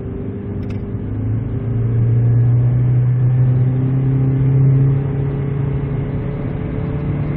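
Small car's engine heard from inside the cabin, pulling under throttle: its note gets louder about a second in and climbs slowly in pitch as the car gathers speed. The shop suspects the transmission of struggling on the shift from third to fourth and says the car should be checked if the sound keeps on like this while the speed rises.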